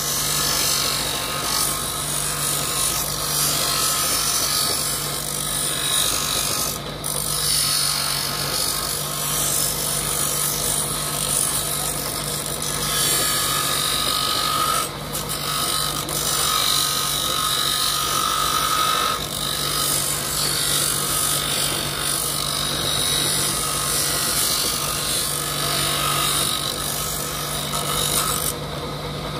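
Bench grinder running with a steady motor hum while a cut piece of buffalo horn is pressed against its stone wheel to round it, a continuous rasping grind that eases off briefly a few times.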